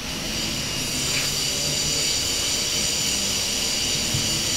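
Aerosol spray can hissing steadily as penetrating spray is blown through its straw nozzle into a rusted, stuck turret collector ring to loosen it.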